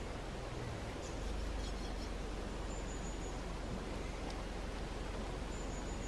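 Steady woodland background hiss, with a thin high bird peep about halfway through and again near the end, and a few faint knife taps on a plastic cutting board as lamb liver is sliced.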